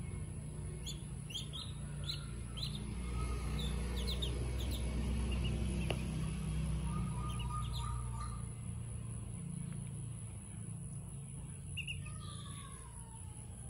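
Ducklings peeping in short, high chirps that fall in pitch, scattered in small clusters, over a steady low rumble.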